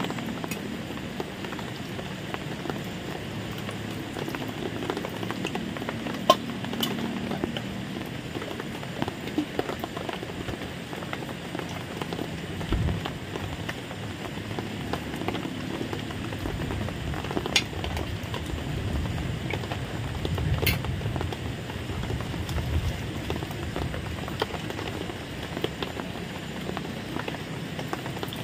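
Eating sounds, soft chewing and a few sharp clicks, over a steady rain-like rushing noise.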